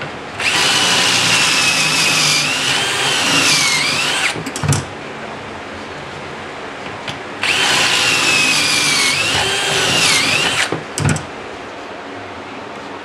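Cordless drill boring pocket holes in a pine board, in two runs of about four and three seconds. Each run is a loud, high whine that sags in pitch as the bit bites near the end, then stops, followed by a few short knocks.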